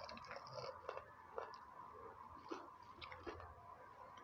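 Biting into and chewing a freshly fried Korean corn dog with a crispy breadcrumb crust: soft, irregular crunches and chewing sounds, with a few sharper crunches about a second in and again near the end.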